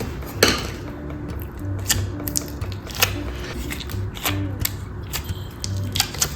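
Slime being handled, making several sharp, irregular clicky pops and crackles, the loudest about half a second in, over soft background music.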